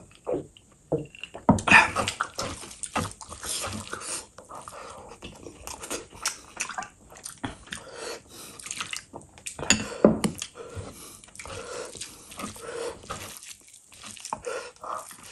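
Close-up wet eating-table sounds: sips of iced water from a glass, then gravy poured from a glass bowl over rice and a bare hand squishing and mixing the rice in it. Irregular clicks and wet smacks throughout, with sharp louder sounds about two seconds in and about ten seconds in.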